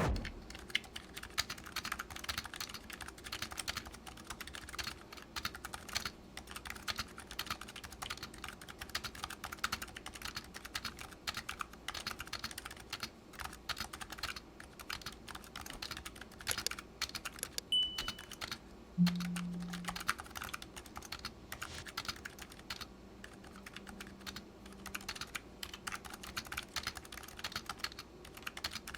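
Razer Huntsman Mini keyboard with linear optical switches being typed on continuously: a fast, dense run of key presses. A short low tone sounds about two-thirds of the way through.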